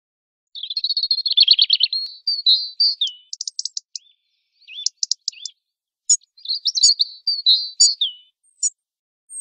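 European robin singing: high, varied phrases of quick notes and rapid trills, broken by short pauses.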